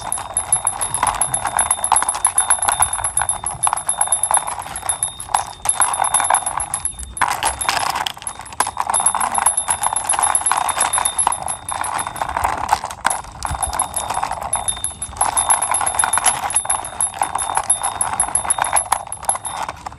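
Plastic wheels of a toy police motorbike rolling and rattling along a rough wall as it is pushed by hand: a dense, continuous clicking with a few brief pauses.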